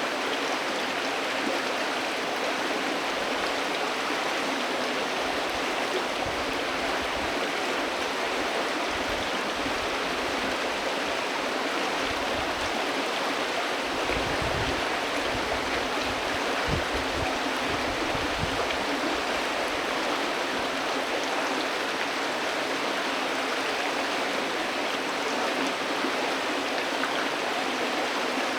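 A calm river flowing, a steady rush of moving water with no break. Some low rumbling comes and goes in the middle.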